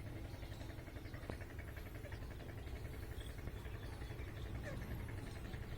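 Steady low background hum, with a click about a second in and a few faint, short bird chirps near the end.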